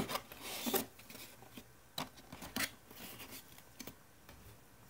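Product packaging being handled during unboxing: a few short rustles and sharp clicks, the loudest under a second in, more about two seconds in.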